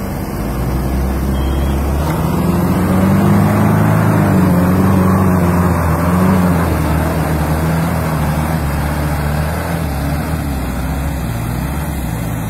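Diesel engines of a John Deere tractor and an Isuzu Elf truck running hard under load as the tractor tows the loaded truck on a line. The engine note swells over the first couple of seconds, wavers up and down in pitch at its loudest, and eases slightly after about seven seconds.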